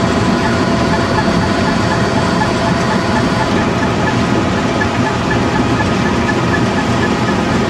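Heavy vehicle engine running steadily, with a light, regular ticking about four times a second.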